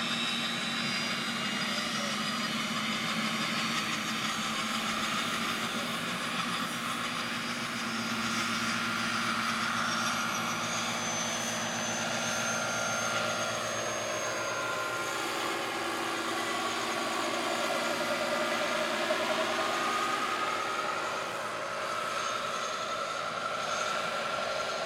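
Radio-controlled scale Mil Mi-8 model helicopter running, a steady whine of its drive and rotor as it lifts off and flies. From about eight seconds in, several tones slide down and back up in pitch as it moves about.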